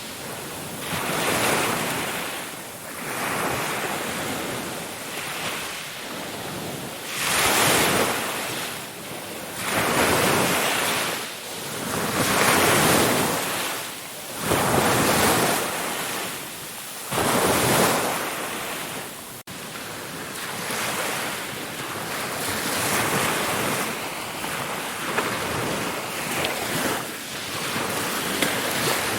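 Ocean waves breaking and washing ashore, the surf swelling and falling back every few seconds. There is a brief dropout about two-thirds of the way through, after which the wash is steadier.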